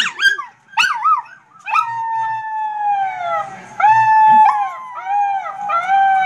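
Small white-and-tan dog howling: a few short yips at first, then long howls that slide down in pitch, then shorter howls that rise and fall. It is answering a dog video playing on the computer.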